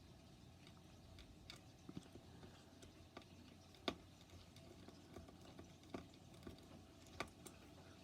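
A few faint, scattered clicks and taps of a small screwdriver and tiny screws being handled on a graphics card, the sharpest about four seconds in, others near two, six and seven seconds.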